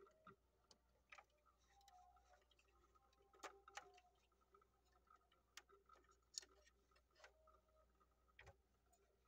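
Near silence with faint, scattered clicks of a 1:24 die-cast metal Nissan GT-R R35 model car being handled, its small doors and bonnet opened and shut.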